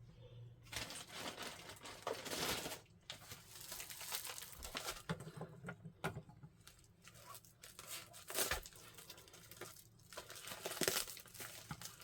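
Packaging being torn open and crinkled by hand, in irregular rustling bursts.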